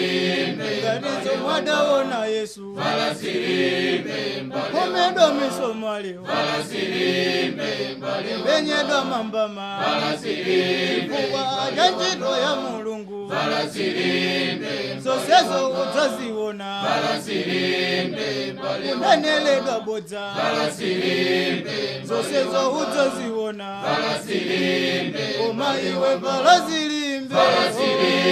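A choir singing a hymn without accompaniment, in phrases of three to four seconds each.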